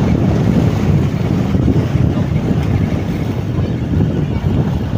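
Wind buffeting the microphone: a loud, gusty low rumble with a fainter hiss of sea above it.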